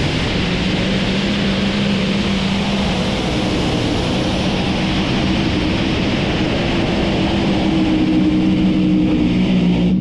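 Light modified pulling tractor's engine at full throttle during a pull: a loud, steady drone held at high revs with little change in pitch.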